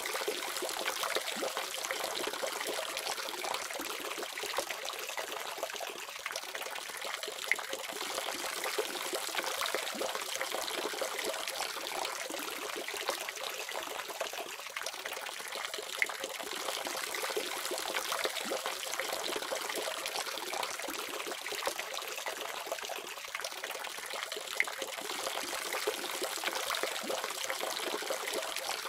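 Water running steadily from a faucet, a continuous splashing trickle with small irregular drips and spatters.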